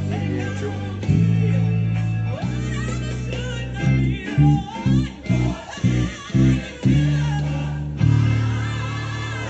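Electric bass guitar playing long held low notes, then a quick run of short plucked notes between about four and seven seconds in, then held notes again.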